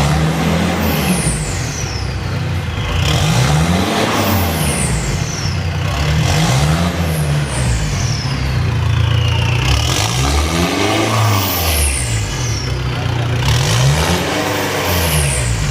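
Mitsubishi Pajero Sport engine revved up and back down about five times through a new full stainless-steel exhaust with an Akrapovic tip. Each rev rises and falls in pitch, with a high falling whistle as the revs drop.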